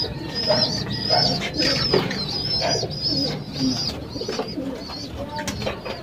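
Racing pigeons cooing in a loft, with a run of short high chirping calls repeating two or three times a second over the lower coos.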